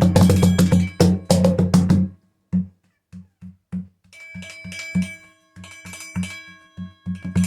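Chime drum being played: a quick run of strikes for about two seconds, each with a deep drum thud and bright metallic overtones, then a few sparse single taps, then slower strikes from about four seconds in whose chime tones ring on between hits.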